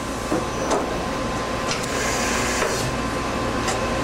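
Cincinnati-Milacron 18C CNC turning center running: a steady mechanical hum with a thin steady tone, broken by sharp clicks about once a second and a brief hiss in the middle.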